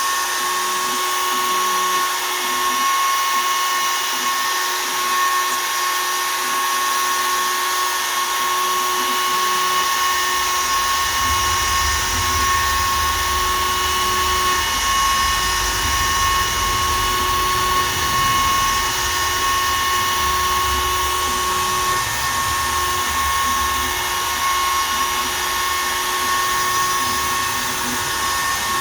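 Shapeoko 3 XL CNC router spinning a 1/8 in two-flute downcut spiral bit at 20,000 rpm and cutting poplar, a steady high whine. A deeper rumble joins from a little over a third of the way in to about three quarters.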